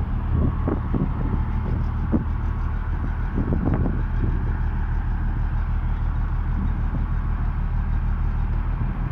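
Komatsu bulldozer's diesel engine running steadily, with a few brief louder noises in the first four seconds.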